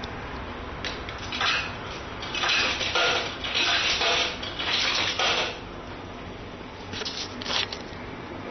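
A series of short rustling and clattering handling noises, heaviest from about one to five seconds in, with two more near the end, over a steady background hiss.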